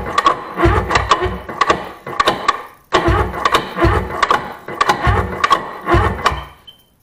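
Electric starter cranking a 1997 Sea-Doo GTI 720's two-stroke twin engine over slowly, at about two labouring strokes a second, in two runs with a short break about three seconds in. The engine has so much compression that it is pulling down a weakening boost pack.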